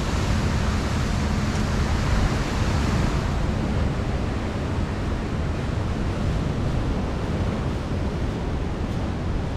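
Steady rushing noise of sea surf and wind, with no single event standing out; the hiss softens slightly after about three seconds.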